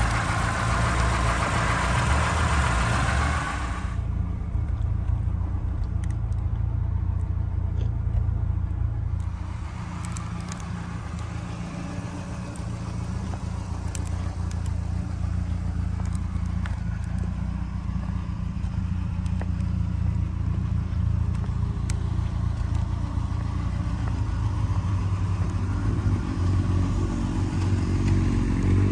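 A 1982 Ford Capri's engine idling steadily. It is louder, with a hiss, for the first few seconds over the open engine bay, then quieter and mostly a low hum as the car is passed alongside, and it grows fuller again near the end.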